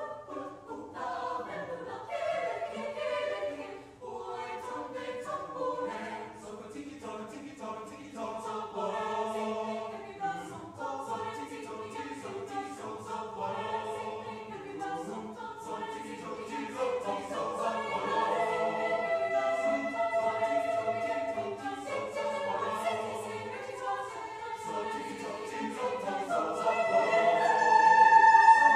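Mixed choir of men's and women's voices singing a rhythmic choral piece. Short, clipped syllables in the first half give way to held chords that swell louder near the end.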